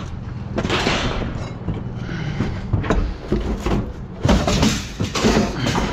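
Scrap metal being unloaded: metal scraping and clanking as pieces are dragged and dropped, with several loud bangs about four to five and a half seconds in.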